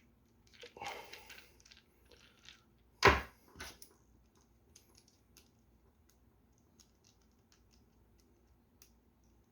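Small clicks and rattles of a screwdriver and fishing reel parts being handled on a tabletop, with a scraping rustle about a second in and one sharp knock about three seconds in, then scattered light ticks.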